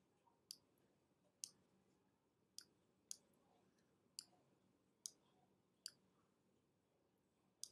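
Computer mouse button clicking: about eight sharp, faint clicks at uneven intervals, some followed closely by a softer second click, as shapes are dragged out and moved, over near silence.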